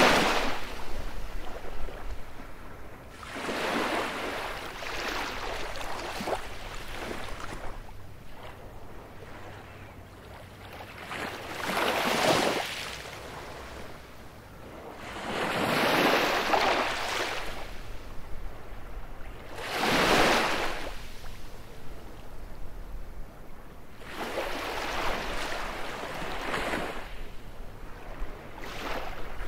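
Baltic Sea waves breaking on a beach: about six breakers in half a minute, each swelling to a rushing wash and then falling back to a quieter hiss before the next.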